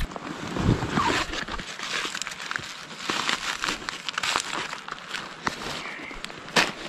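Rustling of a backpack's fabric and the crinkling of a foil freeze-dried meal pouch as it is pulled out and handled, with many small irregular crackles.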